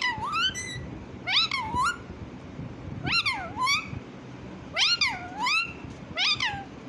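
Pet parrot giving repeated meow-like calls, mostly in pairs about every one and a half seconds, each call rising and then falling in pitch.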